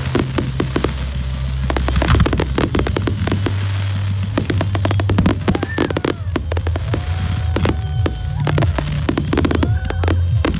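A fireworks display going off: a rapid, dense run of bangs and crackles from bursting aerial shells, many every second, with music playing underneath.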